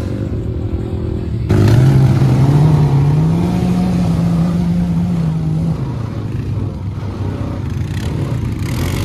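Four-wheeler (ATV) engine heard close up from the seat. It runs steadily, then about a second and a half in it jumps louder and speeds up with rising pitch. It holds for a couple of seconds and eases off near the six-second mark.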